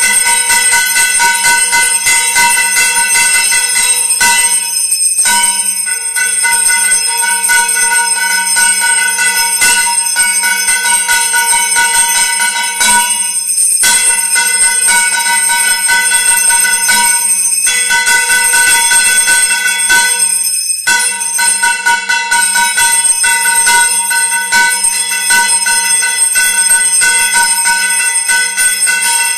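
Temple bells ringing continuously and rapidly for the aarti, a dense metallic ringing that breaks off for about a second a few times before starting again.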